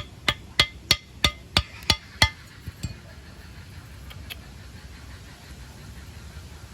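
A quick series of about eight sharp knocks, roughly three a second, stopping after about two and a half seconds, with a couple of fainter taps after: striking or tapping work while the trap is being built.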